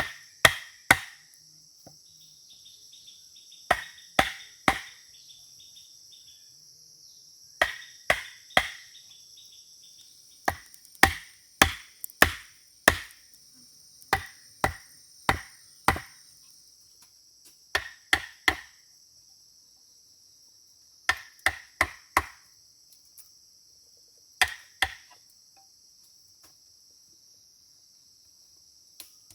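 Axe chopping wood: sharp strikes in short runs of three or four, about two a second, with pauses of a few seconds between runs.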